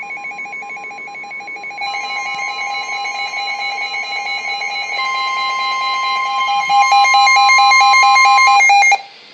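Weather alert radio sounding its warning alarm for a severe thunderstorm warning: steady tones near 1 kHz layered with a fast alternating beeping, getting louder in steps and cutting off abruptly about nine seconds in.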